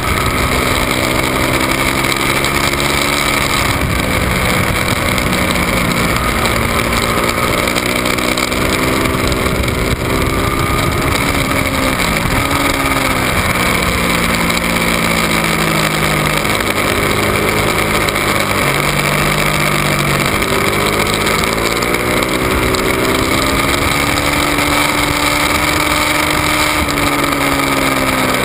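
Ducati 1199 Panigale's 1198 cc Superquadro V-twin at track speed, heard from a camera on the bike, its pitch rising and falling with the throttle, with a brief sharp dip about twelve seconds in and a lower stretch near the middle before it climbs again. A steady rush of wind noise lies under it.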